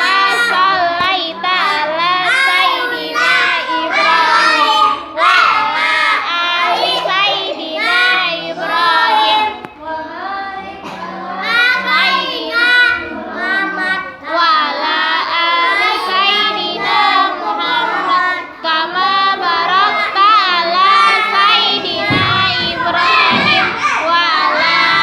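Children's voices chanting a prayer recitation together in a sing-song cadence, continuous and loud.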